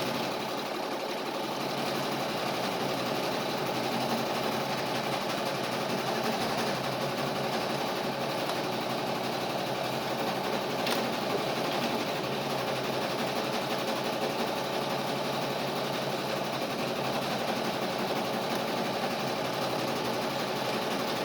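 Steady mechanical hum of a running motor, even and unchanging throughout, with a single faint click about eleven seconds in.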